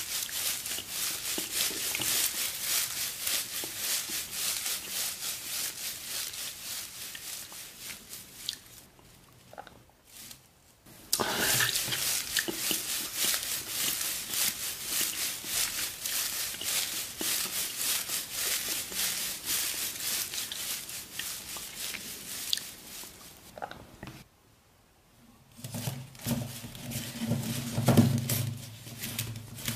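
Dry straw rustling and crackling as a hand rummages through it close up, in two long stretches with a short pause between. Near the end, cloth being handled over a wicker basket, with a low hum and a few soft thumps.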